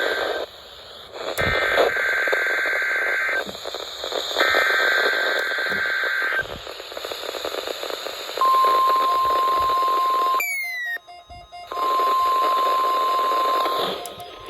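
NOAA Weather Radio Required Weekly Test signals over radio static. Three SAME digital header bursts, buzzing two-tone data squawks of about two seconds each a second apart, end about six seconds in. After a short gap comes the steady 1050 Hz warning alarm tone, cut by a brief signal dropout about ten seconds in, then resuming until near the end.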